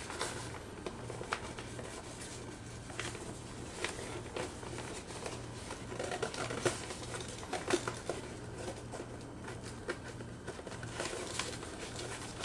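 Nylon suitcase lining rustling and crinkling, with small clicks and short rasps from a zipper pull being worked on the interior divider panel. The sounds come in scattered short clusters.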